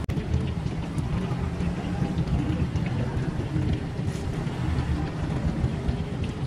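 Steady low rumble of background noise, with a few light clicks of metal utensils against containers.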